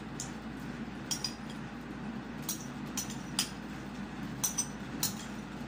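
Metal spoon clinking against a bowl as soup is spooned up: a scattering of short, light clinks over a steady low hum.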